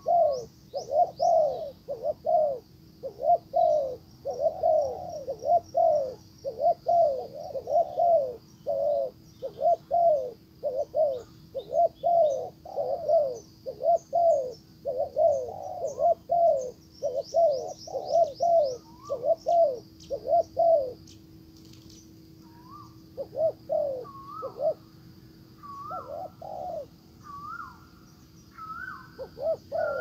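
Spotted dove cooing in long, rapid runs of low coos, breaking off briefly a little after twenty seconds. Near the end a higher, rising call repeats among the coos, and small birds chirp faintly in the background.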